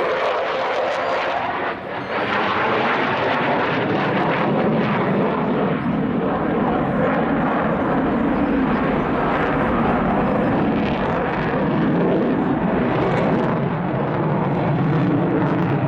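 Su-27 Flanker jet fighter's twin AL-31F turbofan engines running loud and steady as it flies its display.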